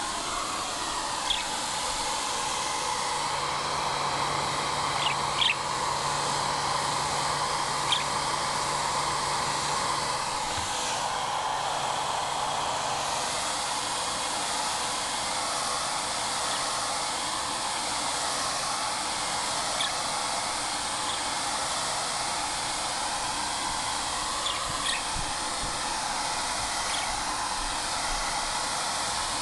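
A handful of short, sharp budgie chirps over a steady rushing noise, like a blower or fan.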